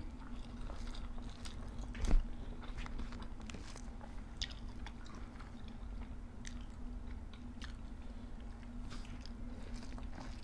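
Close-up eating sounds: chewing and crunching of raw vegetables, with many small mouth clicks and one sharper knock about two seconds in, over a faint steady hum.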